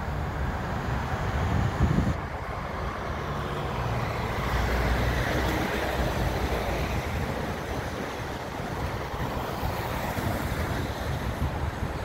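Road traffic at a wet intersection: cars passing with tyre hiss on the wet road over a steady low rumble, swelling as a car goes by about five seconds in. A brief low thump comes about two seconds in.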